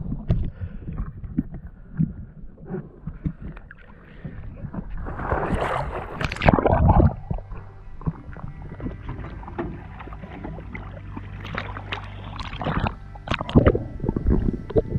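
Water sloshing and slapping around a small boat, with irregular knocks and a loud splashy stretch about halfway through. A motor hums steadily from about seven seconds in.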